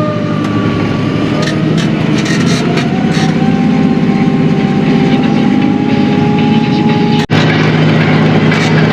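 An engine running steadily, its pitch creeping up slightly over a few seconds. The sound cuts out for an instant about seven seconds in.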